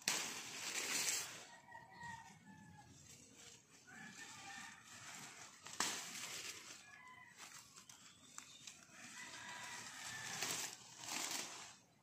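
Short pitched animal calls, distant and repeated every couple of seconds, with louder bursts of rushing noise at the start, about six seconds in after a sharp click, and again near the end.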